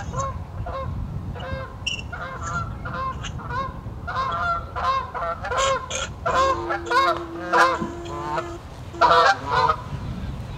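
A flock of geese honking as they fly over, many overlapping calls that grow louder and more frequent partway through.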